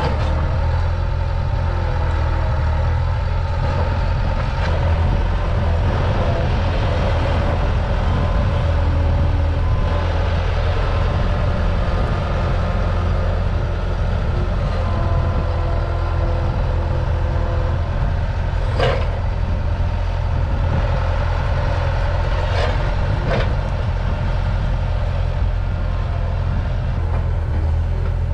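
Diesel engine of a compact earthmoving machine running steadily, with a shifting whine over the low rumble. Three sharp knocks come in the last third, one and then two close together.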